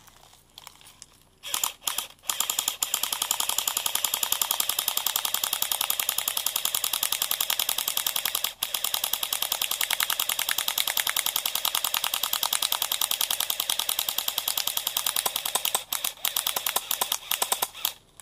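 Airsoft AK-47 replica firing on full auto: a few short bursts, then long, rapid strings of shots with a brief pause about halfway, and short bursts again near the end.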